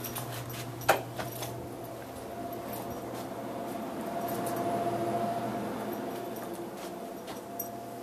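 Steady hum of running refrigeration appliances, a break-room refrigerator and drinks vending machine, with a faint whine that swells in the middle and fades again. A single sharp knock comes about a second in, and there are light clicks throughout.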